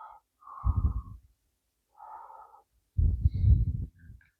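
A person breathing close to the microphone: two slow breaths, each a faint, thin intake followed by a louder, heavier exhale.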